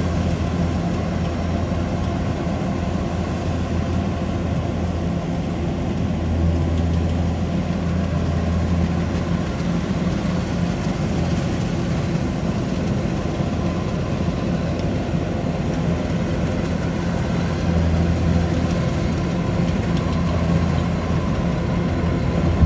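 Kubota DC-105X combine harvester running steadily under load while cutting rice, its diesel engine giving a constant low hum over the clatter of the threshing machinery.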